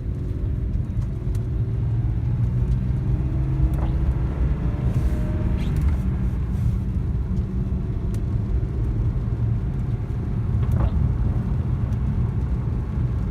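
BMW E36 M3's inline-six engine pulling in second gear, heard from inside the cabin over a heavy low rumble of road and drivetrain noise. The engine pitch rises through several revs, dropping back and climbing again a few times.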